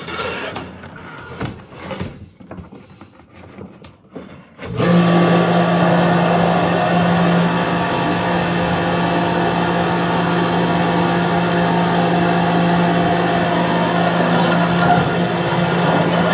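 Irregular water sounds for a few seconds, then a high-pressure drain-cleaning washer starts abruptly about five seconds in and runs with a loud, steady hum.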